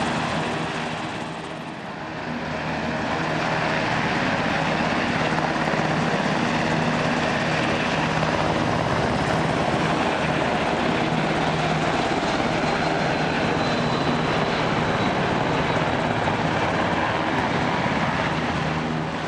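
UH-60J helicopter's rotor and twin turboshaft engines running loud and steady as it flies past, dipping briefly about two seconds in. Jet engine noise from a U-125A flying in formation with it is mixed in.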